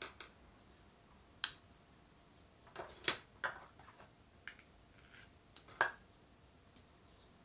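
Hands handling small 3D-printed plastic plates: scattered light clicks and taps of hard plastic set down on and picked up from a paper-covered table, about eight in all, the sharpest about a second and a half in and around three seconds in.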